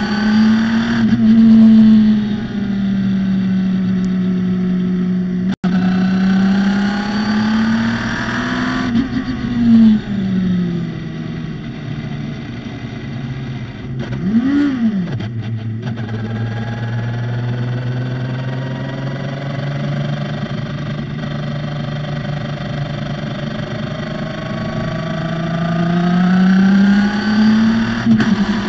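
Radical SR3 race car engine running hard on track, its note rising and falling as it accelerates and changes gear. About 14 seconds in there is a quick sharp rev up and back down, after which it runs at a lower, steadier pitch, then climbs again near the end.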